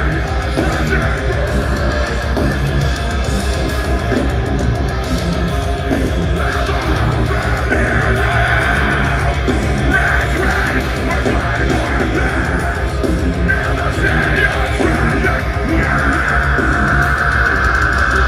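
Deathcore band playing live: heavily distorted guitars and bass over fast, driving drums.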